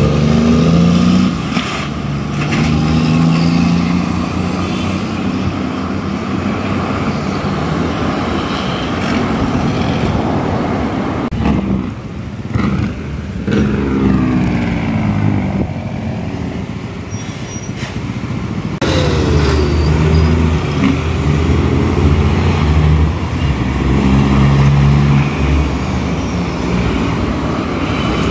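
Heavy diesel trucks with Jake brakes (engine brakes) on, the loud engine note falling in pitch as each truck slows. The sound changes abruptly about two-thirds of the way through, as one truck gives way to another.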